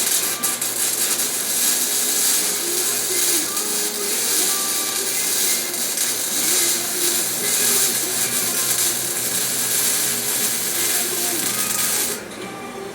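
Harbor Freight wire-feed welder's arc crackling steadily through one long weld, stopping abruptly about twelve seconds in.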